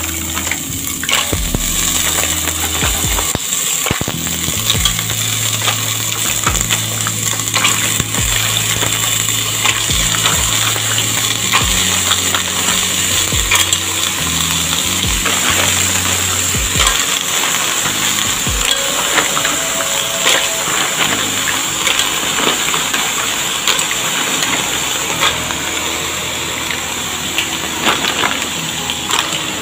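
Mussel shells clinking and clattering against the sides of a stainless-steel pot as they are stirred while steaming, with many short clicks over a steady sizzling hiss.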